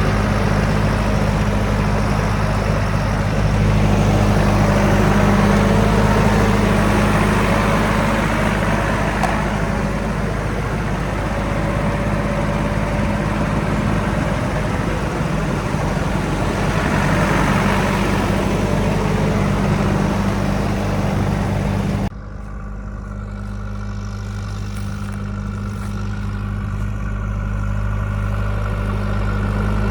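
JCB backhoe loader's diesel engine running steadily under a loud, rough working noise. About two-thirds of the way through the noise cuts off abruptly, leaving a quieter, steady engine hum that slowly grows louder.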